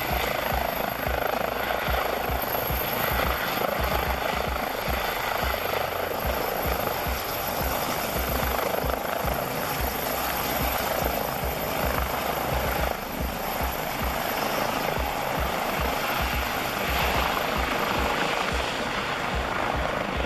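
Airbus EC135P3 helicopter hovering close to the ground, its twin Pratt & Whitney PW206B3 turbines and rotors giving a steady, loud running noise over a low, uneven thudding from the rotor.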